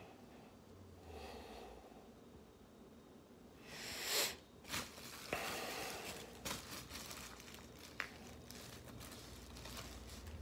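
Clear plastic bag crinkling and rustling as a CD jewel case is handled inside it. The loudest crinkle comes about four seconds in, with a few more over the next couple of seconds and a single sharp click about eight seconds in.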